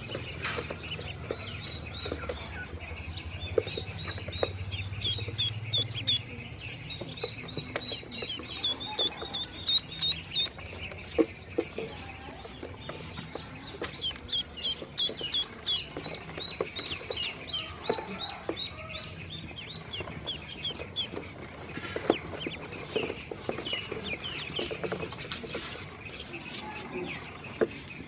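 Ducklings peeping continuously, a chorus of short, high, downward-sliding peeps, with scattered soft taps of bills pecking feed off a plastic tray.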